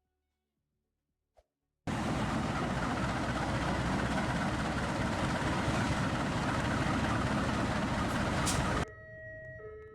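Loud, steady running noise of a CC201 diesel-electric locomotive, starting abruptly about two seconds in after silence and cutting off sharply near the end, where a few sustained electronic tones take over.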